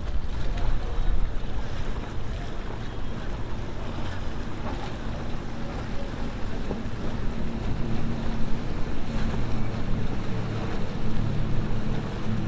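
Fast powerboat's engines running as it comes in, a low steady drone that grows stronger through the second half, over wind noise on the microphone and the wash of waves.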